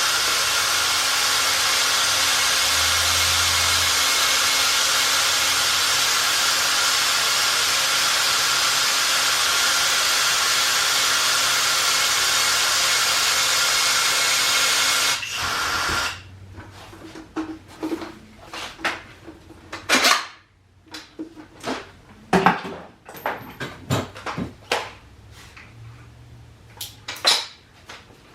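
Battery-powered caulking gun's motor running steadily with a whine, pushing moldable sealant into a cathode bar cavity; about 15 seconds in it stops suddenly. Scattered clicks and knocks follow.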